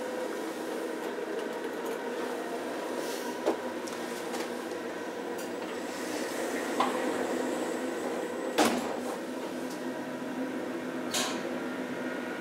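OTIS hydraulic elevator running with a steady mechanical hum, broken by a few sharp clicks and knocks from the car and its doors as it stops and opens, the loudest about two-thirds of the way in.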